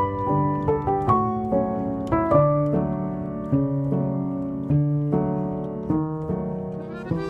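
Background music: a slow, gentle solo piano melody, notes struck about twice a second and left to ring.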